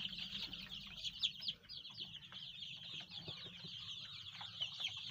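A large flock of young chicks peeping all at once: a dense, continuous stream of short, high, falling peeps overlapping one another.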